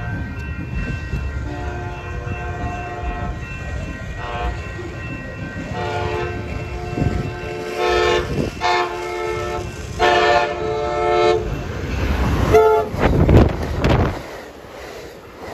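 Amtrak Pacific Surfliner passenger train sounding its horn in a series of long and short blasts as it approaches, then passing close by with a loud rumble of its bilevel cars, which fades near the end.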